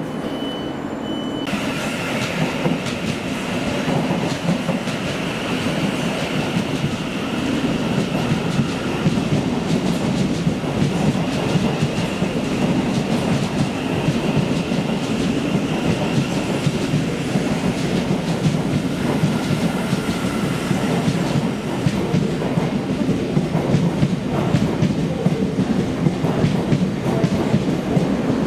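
Passenger train running on rails: a steady rumble with rapid clicking of wheels over the track, and a thin high squeal that comes and goes. It starts abruptly about a second and a half in.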